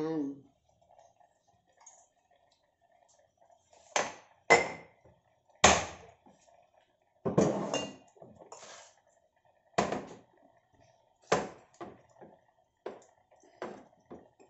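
Kitchenware being handled: about a dozen sharp knocks and clinks at irregular intervals, each with a short ring, over a faint steady hum.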